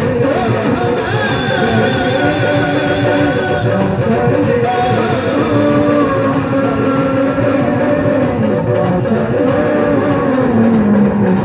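Amplified live bhajan music: a melody line of long, sliding held notes over hand-drum accompaniment.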